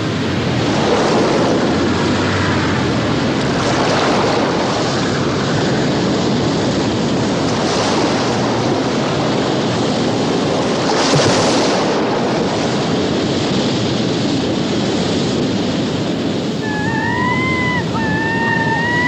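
Sea waves and wind: a steady rushing that swells and eases, loudest about two thirds of the way through. Near the end come three short high calls that rise and fall.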